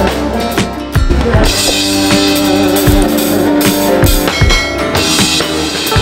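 Live drum kit played hard, with kick and snare hits and cymbals crashing and washing from about a second and a half in. Sustained pitched notes from the band's other instruments run underneath.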